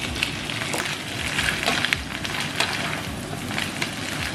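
Sliced mushrooms frying in a little butter in a pan, sizzling steadily, with scattered clicks and scrapes of a utensil stirring them.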